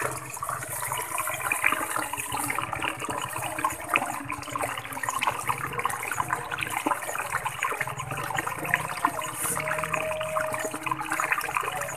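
Muddy rice-paddy water splashing and sloshing, with continuous small crackles and clicks, as a hooked eel struggles and is pulled from its hole.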